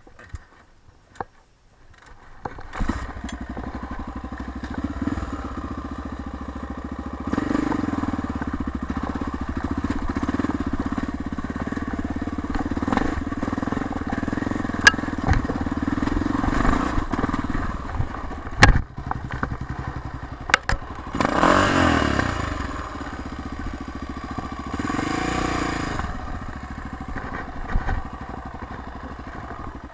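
Honda XR600 dirt bike's single-cylinder four-stroke engine catching about two seconds in and then running as the bike climbs a dirt trail, revving up and back down twice near the end. A few sharp knocks sound partway through.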